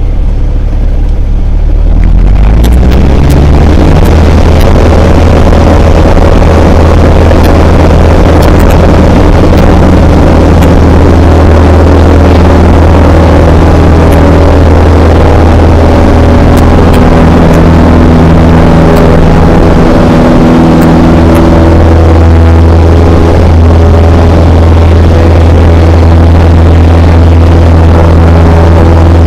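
Cessna 172 Skyhawk's piston engine and propeller heard from inside the cabin, brought up to full power about two seconds in and held there, loud and steady, through the takeoff roll and climb-out.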